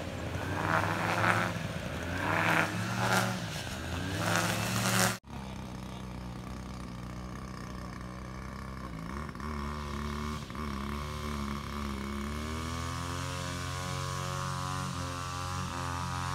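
Small petrol engine running, its pitch rising and falling for the first few seconds. It breaks off suddenly about five seconds in, then runs more steadily, its pitch slowly climbing near the end.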